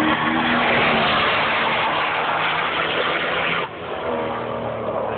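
Zenvo ST1 supercar's twin-charged V8 running hard as the car passes at speed. The loud engine sound drops sharply about three and a half seconds in.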